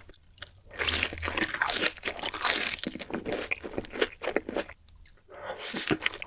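Close-miked crunchy bites and chewing of fried food: dense, irregular crackling for several seconds, easing off briefly near the end before starting again.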